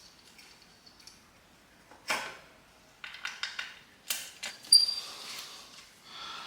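Small metal bike parts and hand tools being handled while fitting a brake bolt: a sharp knock about two seconds in, then a run of light clicks and rattles and a bright metallic clink that rings briefly.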